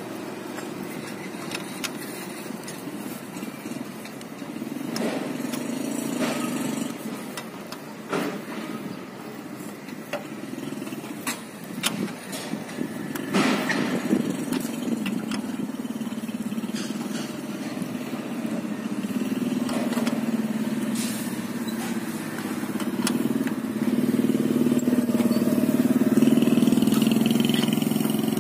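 A road vehicle's engine running nearby, its hum swelling and growing loudest near the end, with a few sharp metal clicks and clinks scattered through the first half.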